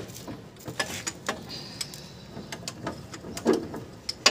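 Irregular light metallic clicks and clinks of hand tools on bolts and brackets under the van's rear suspension, a dozen or so short hits at uneven spacing.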